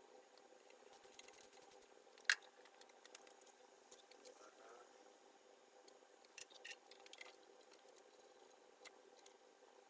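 Scattered faint clicks and clinks of small metal parts being handled and fitted as the drill press spindle feed is reassembled, the sharpest about two seconds in. Between them, near silence with a faint steady hum.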